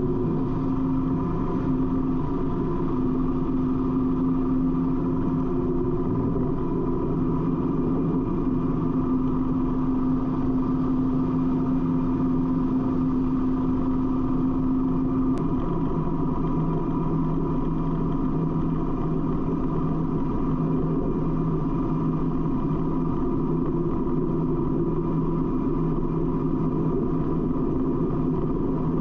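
Harley-Davidson V-twin engine running steadily at highway cruising speed, with road and wind noise. About halfway through there is a faint click and the steady hum drops to a lower pitch.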